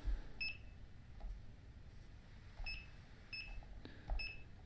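Digital coffee scale beeping as its buttons are pressed to reset it: four short, high-pitched beeps, two of them close together near the middle.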